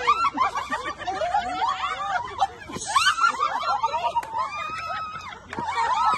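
A group of women laughing and shrieking together, many high voices overlapping with excited chatter.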